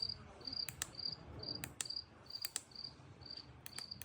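Sound machine's speaker playing a cricket-chirping nature sound: short high chirps repeating about twice a second, with scattered sharp clicks.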